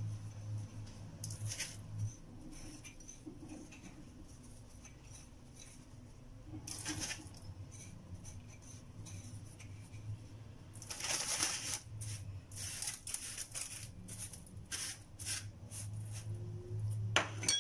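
Soft rustling and scraping of breadcrumbs as dough balls are rolled on a plate of crumbs and set down on a parchment-lined baking tray, in scattered short bursts over a low steady hum.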